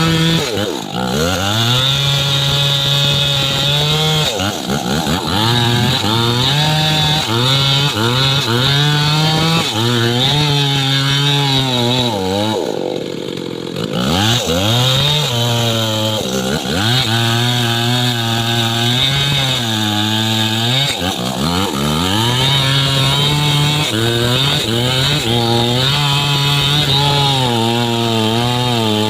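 Chainsaw cutting into a trembesi (rain tree) trunk. The engine note sags under load and climbs back again and again, and eases off briefly about halfway through before cutting on.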